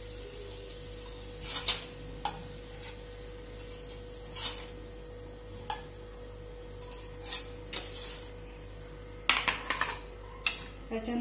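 A metal spoon scraping and clinking in an iron kadhai as roasted chana are scooped out onto a steel plate: about a dozen short scrapes and taps with uneven pauses, and a quick cluster of them near the end. A faint steady hum runs underneath.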